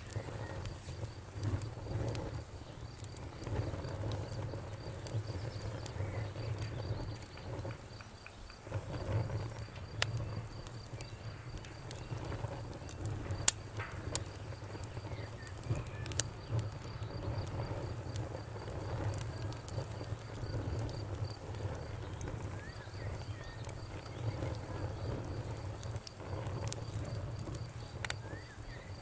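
Wood fire crackling, with scattered sharp pops over a low steady rumble. Crickets chirp in a fast, even pulsing trill, and a few birds chirp faintly.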